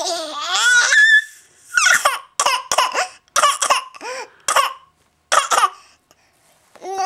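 A little boy's high, rising whine, then a string of about ten short, forced fake coughs in quick bunches.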